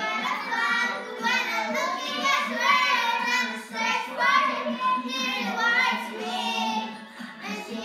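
A child's voice singing a children's worship song over backing music.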